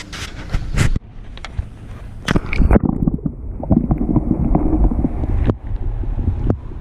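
A few sharp clicks, then muffled underwater sound from a submerged camera: a low rumbling water wash with scattered dull knocks and clicks.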